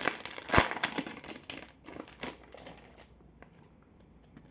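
Foil wrapper of a Panini Flux trading-card pack crinkling as it is torn open, with a sharp rip about half a second in. The crinkling dies away after about two seconds, leaving a few faint clicks.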